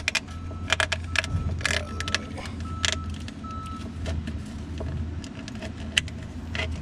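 Short clicks and rattles of hoses, wiring loom and metal lines being handled under a pickup's hood, over a steady low hum. A faint high beep repeats every half second or so during the first few seconds.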